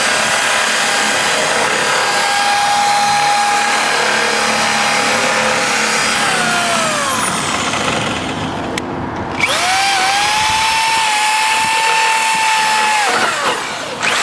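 Electric drill with a 1/4 inch bit boring through an exhaust fan's metal molding, run twice: the motor whine spins up, holds steady while cutting, winds down, stops briefly, then spins up and runs again before winding down near the end.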